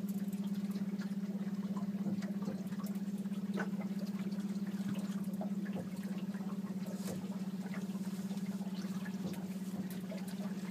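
Outboard motor running steadily at low speed, a constant low hum with a fast even pulse, with scattered light ticks and splashes over it.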